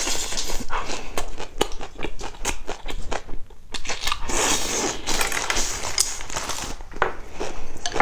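A person biting and chewing food close to the microphone, with a rapid run of small sharp clicks from the chewing.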